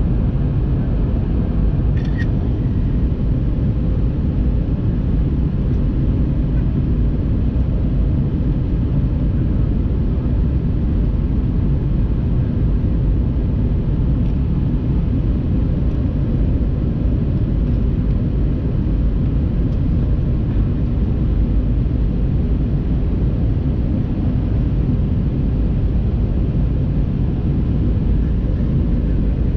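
Steady low rumble inside the cabin of an Airbus A321-200 in flight: its IAE V2500 turbofan engines and the airflow over the fuselage.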